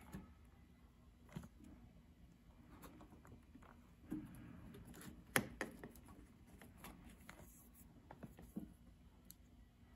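Faint handling sounds of fingers working a small rubber purge hose loose in a motorcycle's engine bay: scattered light clicks and rubbing. The sharpest click comes about five and a half seconds in.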